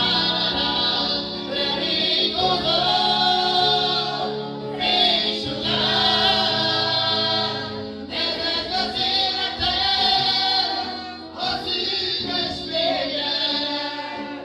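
A male lead singer on a microphone and a small congregation singing a gospel worship song together, with guitar and keyboard accompaniment. The singing runs in long phrases with short breaks between lines.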